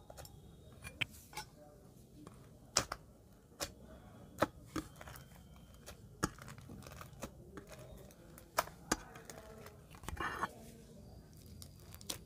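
Crunchy slime full of small white beads being pressed and poked by hand in a glass dish: scattered sharp crackles and pops, with a brief run of dense crackling about ten seconds in.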